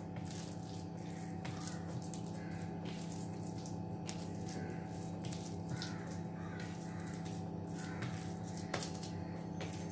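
Oiled hands squishing and kneading a sticky ground-prawn paste on a steel plate, a string of soft wet clicks, over a steady machine hum.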